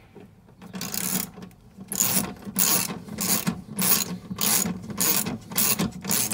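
Socket ratchet clicking in short repeated strokes, about two a second, as a bolt on a van swivel seat base is tightened. The strokes start about a second in.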